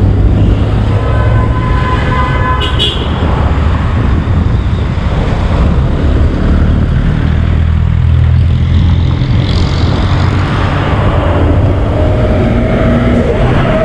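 City street traffic: vehicle engines and tyres make a steady low rumble. A short higher tone, like a car horn, sounds about two seconds in.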